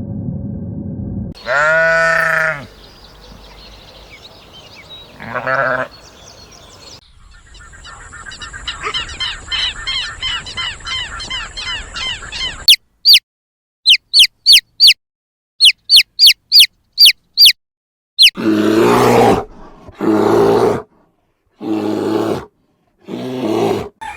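A run of different animal calls one after another. First comes a pitched, bleat-like call and a shorter one. Then rhythmic chirping over a steady high tone, about a dozen sharp descending whistles, and four long harsh calls at the end.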